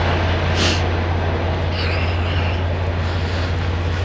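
Semi-truck diesel engine idling steadily with a strong low hum, and a short hiss about half a second in.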